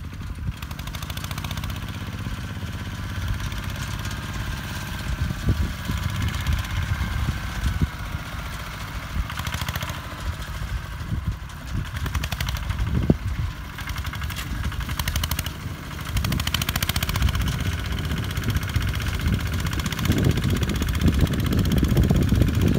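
Engine of a walk-behind tractor converted into a four-wheel-drive ride-on tractor, running under load while pulling a three-disc plough through dry soil. It gets louder in the last several seconds as the tractor comes closer.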